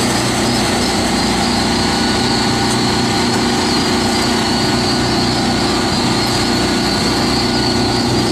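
A steady, loud mechanical hum that runs without a break.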